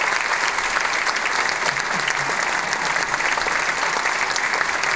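A large concert audience applauding steadily at the end of a choral song.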